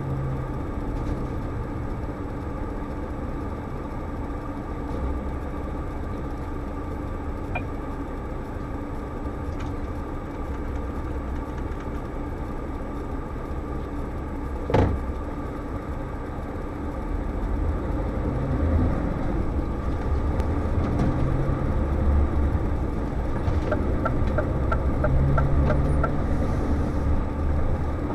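Scania S520's V8 diesel engine running, heard from inside the cab, getting louder in the second half as the truck accelerates. One sharp knock about halfway through.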